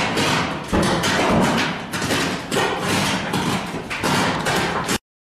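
Large structure fire burning loudly: a rushing, crackling noise that rises and falls unevenly, cutting off suddenly near the end.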